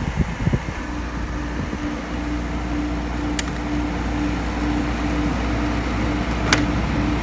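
Amana Cool Zone 8,600 BTU window air conditioner running, its fan blowing and its Tecumseh compressor humming steadily, the hum firming up about two seconds in. A few soft knocks come near the start, and there are two sharp clicks later.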